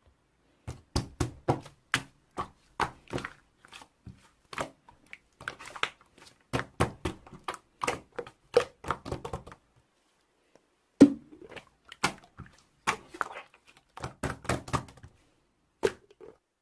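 Slime being squeezed and worked by hand, giving a run of sharp clicks and squelches about two or three a second, with a short pause in the middle.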